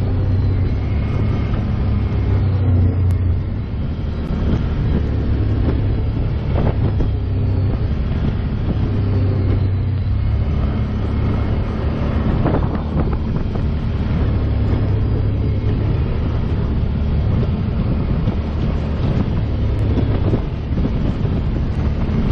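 ATV engine running steadily under way, heard from the rider's own quad, with a couple of brief knocks about a third and halfway through.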